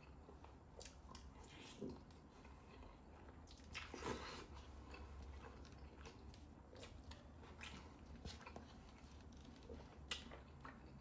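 Faint, close-up chewing of food: soft wet mouth smacks and clicks scattered through, with a louder one about four seconds in.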